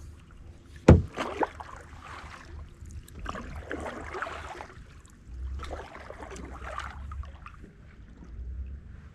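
Canoe paddle strokes in the water, a swish and splash every two seconds or so, with a sharp knock about a second in, the loudest sound.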